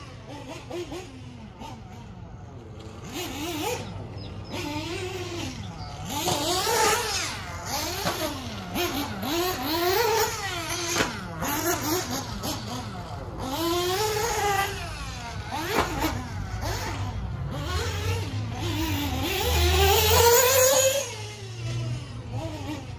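1/8-scale HB Racing D819RS nitro buggy engine revving up and down over and over as the buggy laps a dirt track, the pitch climbing and dropping with each straight and corner. It is loudest near the end.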